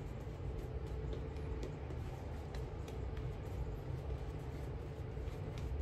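Shaving brush working lather over the face and jaw: soft brushing with faint scattered crackles. A steady low rumble and hum run underneath and are the loudest part.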